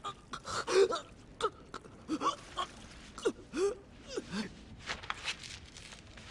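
Faint, strained gasps and short pained vocal sounds from a badly wounded man: about a dozen brief breaths, some bending up or down in pitch.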